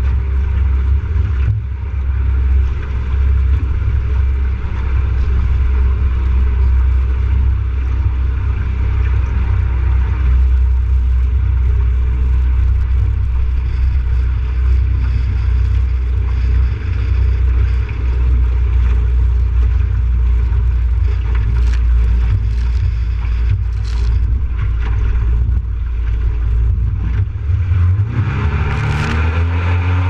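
Jet boat running at speed across choppy lake water: a steady, loud low rumble of engine and wind buffeting the bow-mounted microphone, with a few sharp slaps of waves and spray in the second half. Near the end the engine's pitch rises as it revs up.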